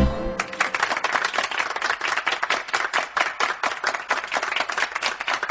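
Applause: a group of people clapping, a dense irregular patter of hand claps.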